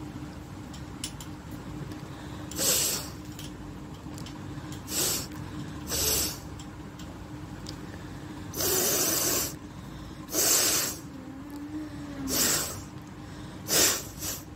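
A woman forcing air hard through her nose, blowing and snorting in about seven short, noisy blasts, the one in the middle held for about a second.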